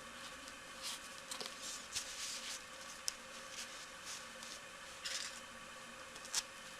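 Quiet handling sounds: soft rustling and a few scattered light clicks as needles are stuck through a woolen insole into a slipper to hold it in place for sewing.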